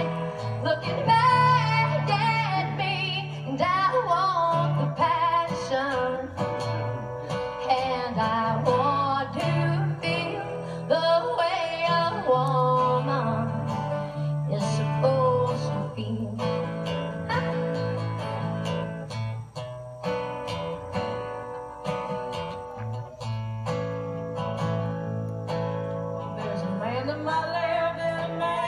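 Live performance of a song: women singing over acoustic guitar, with held low bass notes underneath.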